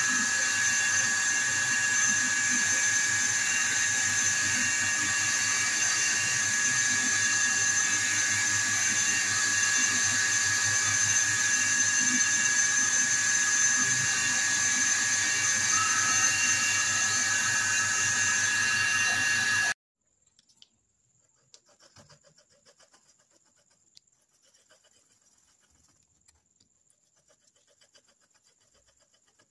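Small lathe running steadily with a high whine, spinning a turned handle while it is polished with a cloth. The sound cuts off suddenly about 20 seconds in, leaving only faint light scrapes and clicks.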